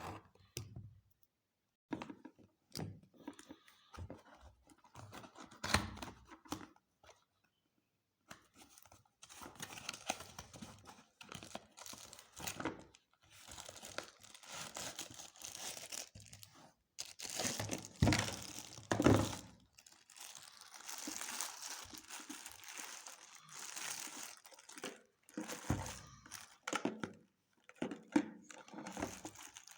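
Packaging being torn open and crinkled by hand, in irregular rustling bursts broken by short pauses, with a few sharp knocks of items being handled.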